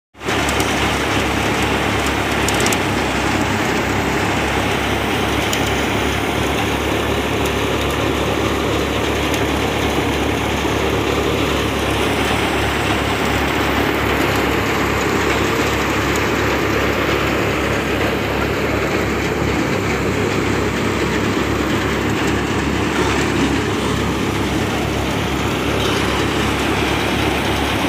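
Tractor-driven paddy thresher running steadily, its threshing drum and blower turned by the tractor engine while rice straw is fed through: a continuous mechanical drone with a steady low hum underneath.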